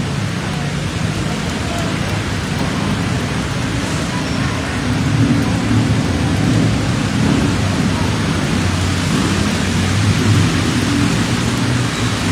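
Heavy rain on a flooded street: a steady hiss of rain and running floodwater, with a low rumble underneath from cars edging through the water.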